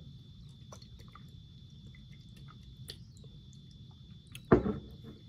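Quiet tabletop handling of a glass hot sauce bottle and a plastic fork: scattered small clicks and taps, then one sharp knock about four and a half seconds in. A faint steady high-pitched whine runs underneath.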